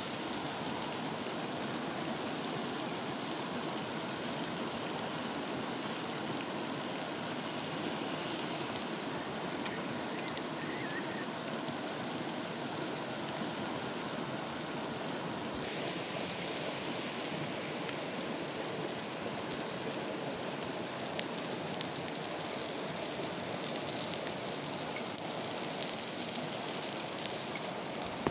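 Steady hiss of frogs sizzling on a hot stone slab over a wood fire, mixed with the rush of a stream, and a few faint crackles in the second half.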